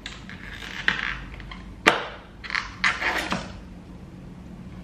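Slime being squished and stretched by hand: soft squelches with several sharp clicks and pops.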